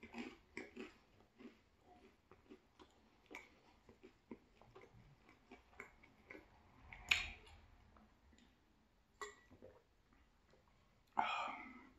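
Close-miked chewing of a bite of thin-crust cheese pizza: soft, irregular wet mouth clicks. A plastic water bottle is handled, with one sharper, louder sound about seven seconds in and a short louder rush of noise near the end.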